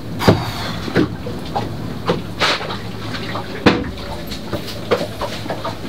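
Irregular knocks, clicks and rustling of hand work inside a boat locker, working on the clogged holding-tank vent hose, over a steady low hum.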